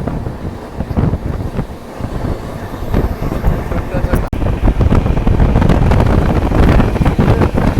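Hirakhand Express passenger train running, with a steady rumble and many short knocks and rattles under heavy wind on the microphone, getting louder about five seconds in.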